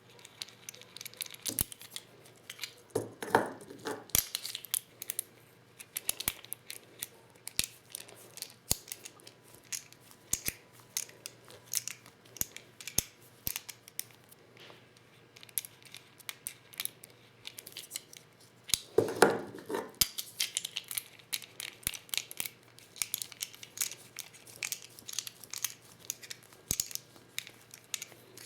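Hand-reloading of 12-gauge shotgun shells with a Lee Loader kit: a steady run of small clicks and taps as shells and loader parts are handled, with two longer, louder scraping rattles, one a few seconds in and one about two-thirds through.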